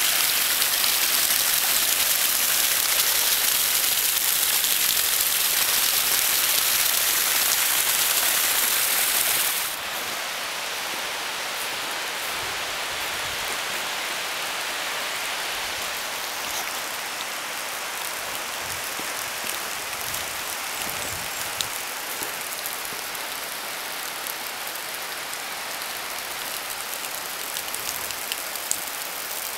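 Steady rushing noise of water. It drops in level about ten seconds in, then carries on quieter with a few faint ticks.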